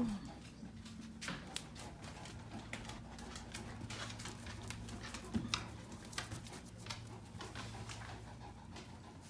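Dogs moving about and playing: scattered light clicks and taps of claws and paws on the floor, over a faint steady low hum.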